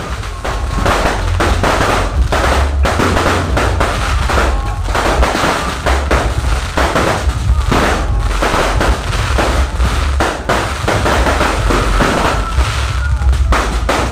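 Aerial fireworks going off in rapid succession, a dense run of bangs and crackles, over a steady deep bass from a loud sound system.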